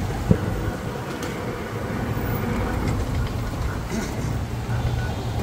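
Steady low rumble of motor vehicle engines, with a single sharp knock near the start.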